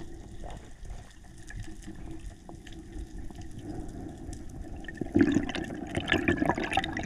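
Underwater water noise heard through a camera housing: a muffled wash of moving water with small clicks and bubbling, growing louder about five seconds in.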